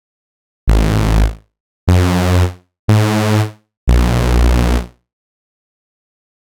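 Vectra software synthesizer playing four separate notes of a thick, detuned unison-stacked patch with deep bass, the last note held longer than the others, with silence in between.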